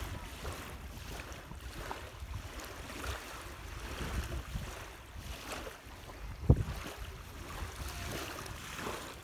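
Wind noise on the phone microphone with small lake waves lapping at the shore; one sharp thump about six and a half seconds in.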